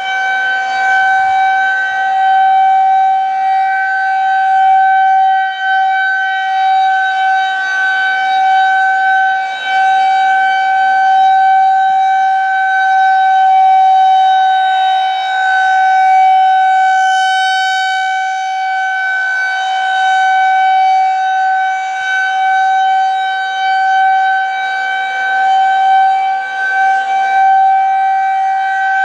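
Federal Signal 2001-130 outdoor warning siren sounding the steady Alert tone during a siren test. It holds one pitch throughout, its loudness and brightness swelling and easing slowly as the rotating siren turns.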